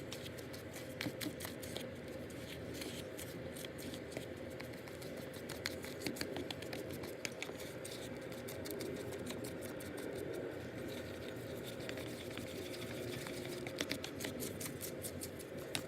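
Bleach mixture of powder lightener and developer being stirred in a bowl: light, irregular scraping and ticking of the stirring tool against the bowl.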